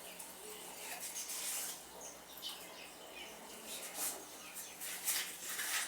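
Hand-washing of dishes and utensils in a basin of water: faint scattered swishes, scrapes and light clinks, with small bird chirps in the background and a steady low hum.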